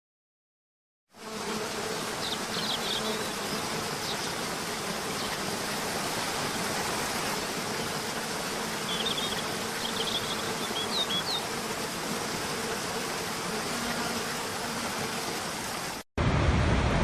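Steady rushing noise of a waterfall, starting about a second in, with a faint steady hum under it and a few brief bird chirps. Near the end it cuts off abruptly to a louder, deeper rushing noise.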